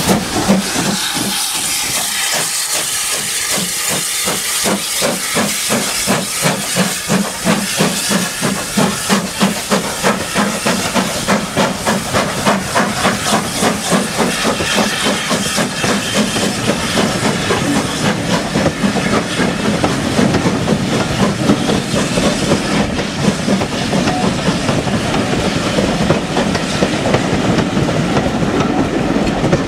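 Steam locomotives working a train past at speed: a long run of chuffing exhaust beats over the hiss of escaping steam, the hiss strongest in the first few seconds. Later the carriages roll by with a steadier rumble and the rattle of wheels over rail joints.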